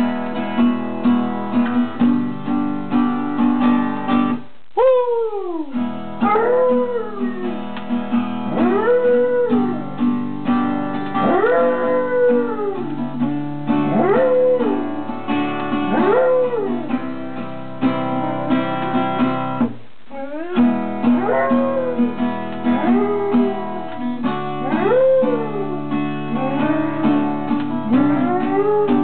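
Acoustic guitar strummed while a basset hound howls along. The howling starts about five seconds in with a long falling howl, then goes on as a run of rising-and-falling howls, one every second or two, with a short break in the middle.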